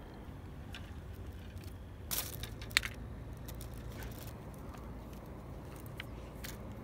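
Hands handling a clear plastic bait pack and fishing tackle: scattered crinkles and clicks, the sharpest a single click almost three seconds in, over a steady low rumble.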